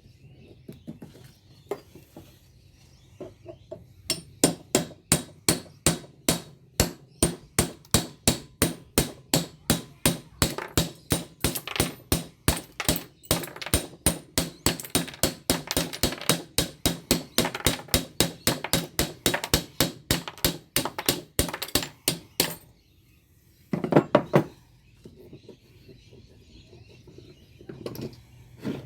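Steady hammer blows on a steel light ballast, about three a second for nearly twenty seconds, as it is broken open to get at the copper windings; a short cluster of knocks follows after a pause.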